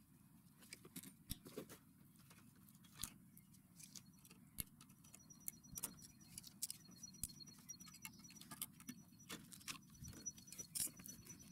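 Faint, scattered small clicks and taps of hand tools working on an old TV's casing and parts. From about five seconds in, a faint high-pitched pulsing insect trill joins.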